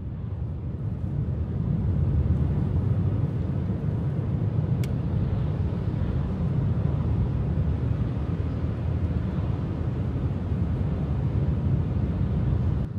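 Steady low road rumble inside a moving car's cabin: tyres on a wet road and the engine under way, fading in over the first couple of seconds.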